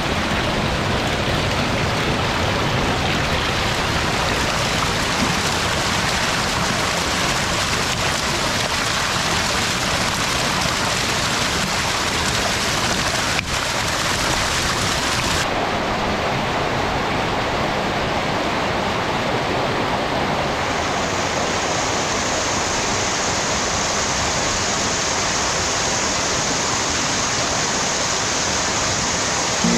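Water gushing steadily from pipes into tanks crowded with live eels, a continuous rush and splash of churning water, with a brief break about halfway through.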